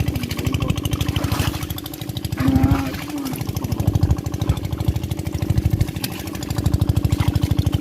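A small engine running steadily with a rapid, even beat. A brief voice-like call comes about two and a half seconds in.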